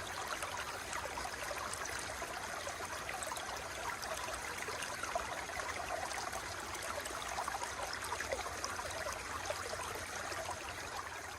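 Running water flowing steadily, an even rush with many small splashy trickles through it, starting to fade out near the end.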